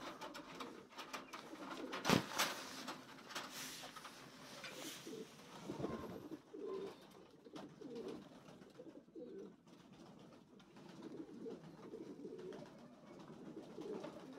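Repeated soft, low cooing calls in short phrases through the second half, after a sharp knock about two seconds in and a few light clicks.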